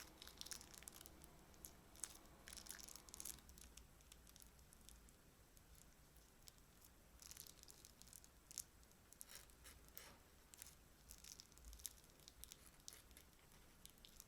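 Faint, irregular crackling and crinkling from crunchy slime and plastic piping bags being handled, in two spells with a lull in the middle.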